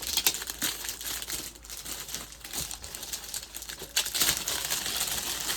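Packaging crinkling and rustling as a box is unwrapped by hand, with many small crackles, louder and busier from about four seconds in.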